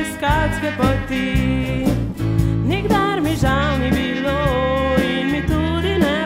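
A pop/folk-style song: a singing voice over a steady drum beat, bass and accompanying instruments.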